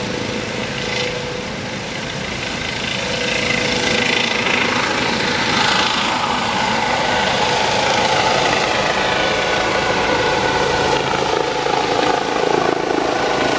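Medical helicopter's turbine engines and rotor running as it lifts off and climbs, growing louder about three seconds in and then holding steady, with whining tones that glide in pitch in the second half.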